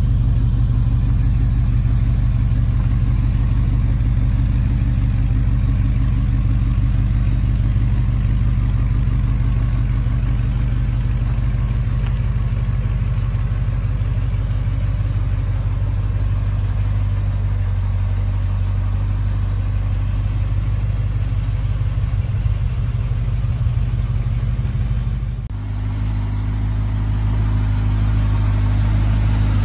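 1968 Chevy C-10 panel truck's 327 four-barrel V8 idling steadily, with a short dip in level about 25 seconds in.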